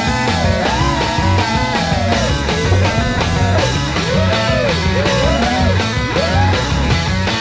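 Rock music with guitar, a melody line that bends up and down, and a steady beat.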